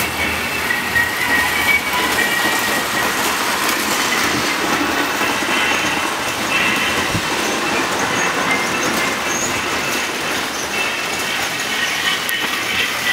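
Several toy electric trains running on metal track: a steady running noise of wheels on the rails, with faint high-pitched squeals.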